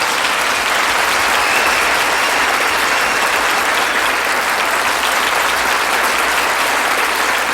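Studio audience applauding steadily after a live rock band's song ends.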